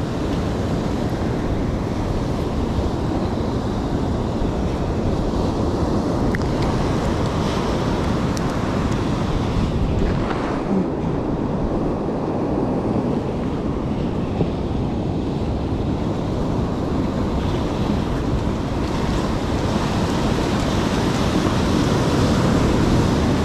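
Ocean surf breaking and washing up a sandy beach in a steady rush, with wind buffeting the microphone; the wash swells a little louder near the end.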